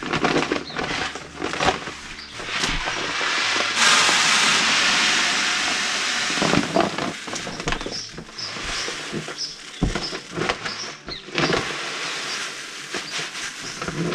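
Fescue seed poured from a paper seed bag into plastic buckets: a hissing, pattering stream of small seeds, in several pours with the longest about four seconds in, between crinkles of the paper bag and light knocks.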